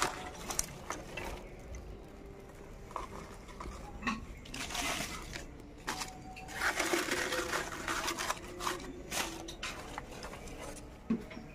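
Kindling fire in a clay stove: dry leaves and thin sticks crackling as they catch, with rustling and light knocks as more sticks are pushed into the fire.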